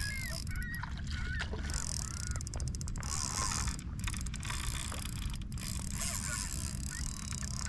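Spinning reel's drag paying out line as a hooked snook runs, a high-pitched ratcheting buzz in several stretches with short breaks. The reel is a Shimano Nasci 4000XG. A few short bird calls sound over it.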